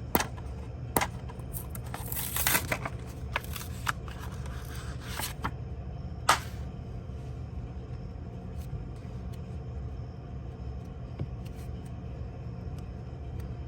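A Pokémon card pack's foil wrapper being torn open in several short crackling rips during the first six seconds or so, followed by light handling clicks of the cards, over a steady low hum.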